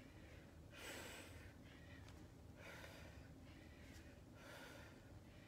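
A woman's faint, heavy breathing under exertion, a breath about once a second in time with repeated dumbbell swings.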